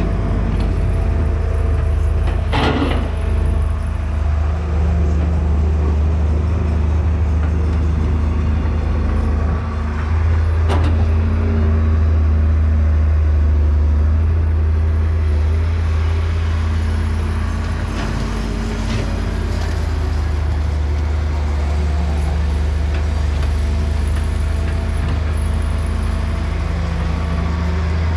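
JCB tracked hydraulic excavator's diesel engine running steadily under load as it digs and swings, with two sharp knocks, one about three seconds in and another about eleven seconds in.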